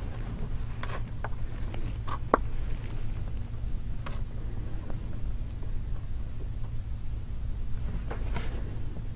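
Steady low hum, with a few faint light clicks and scrapes of small phone parts being handled during a fiddly fitting step of the screen reassembly.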